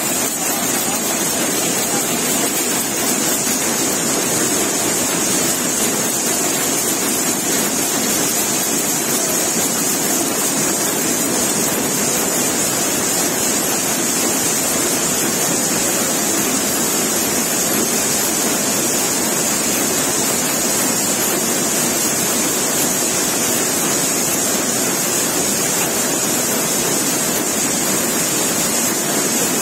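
Looms running together in a weaving shed, the circular loom close by among them: a loud, dense, steady mechanical din with a strong high hiss and no breaks.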